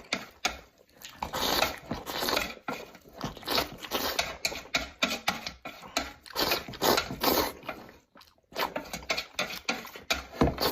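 A person eating stir-fried instant noodles: wet eating sounds in repeated bursts about once or twice a second, with a short pause about eight seconds in.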